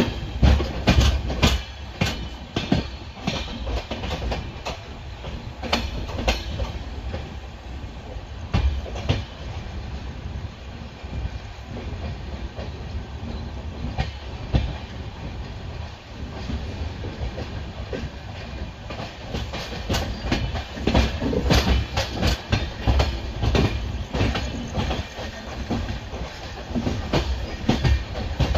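Wheels of a moving passenger train clattering over rail joints and points, heard from beside the coach, over a steady low rumble. The clacks come in quick clusters, thickest at the start and again from about twenty seconds in.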